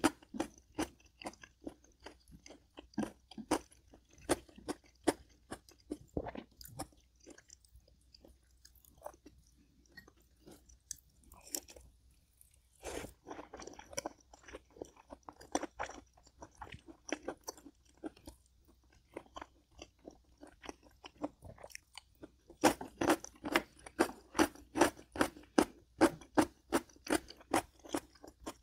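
A person chewing and crunching food, with a quieter stretch in the middle and a quick, louder run of crunchy bites, about three a second, near the end.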